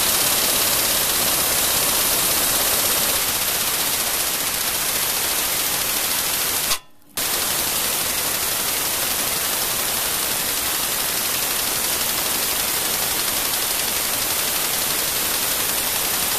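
Heavy-duty air impact wrench hammering on a Ford Explorer's tight self-locking radius arm bolt, running in two long runs with a brief stop about seven seconds in. It is turning the bolt loose.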